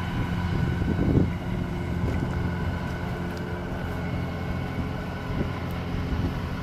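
Steady engine drone of a rice combine harvester working the field, with wind buffeting the microphone and a stronger gust about a second in.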